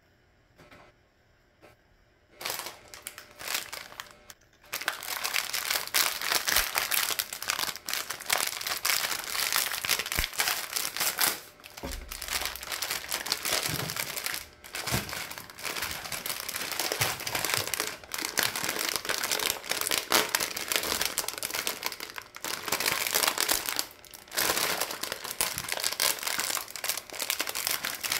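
Thin plastic grocery bags and packets crinkling and rustling as they are handled and groceries are pulled out. It starts a couple of seconds in and keeps going in uneven spells.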